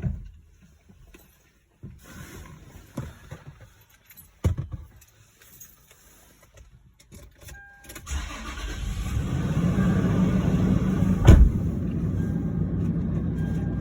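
Clatter and knocks, then about eight seconds in a motor starts and runs steadily, with one loud thump near the end.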